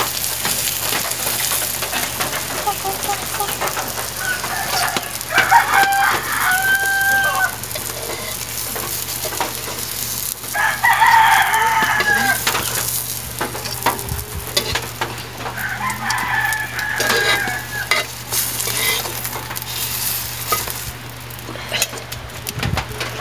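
Mushroom fritters sizzling in oil in a wok over a wood fire, with scattered clicks and crackles. A rooster crows three times, about five, ten and sixteen seconds in, the first two crows being the loudest sounds.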